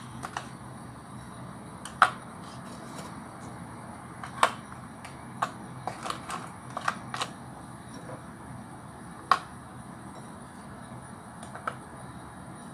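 Marie biscuits being laid one by one into a plastic jelly mould: a series of sharp, light clicks and taps of biscuit on plastic, several coming in quick succession, over a low steady hum.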